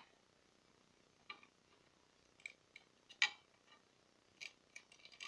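Light, irregular clicks and scrapes of a metal screwdriver tip poking at a loudspeaker driver's frame and spider, the loudest about three seconds in and a quick cluster near the end.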